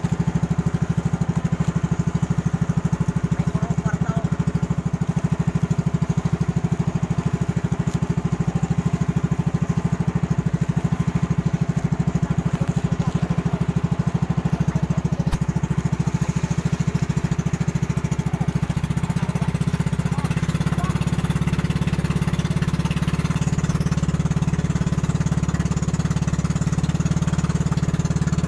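Small boat's engine running steadily under way, a loud, fast-pulsing low drone; its note shifts slightly about two-thirds of the way through.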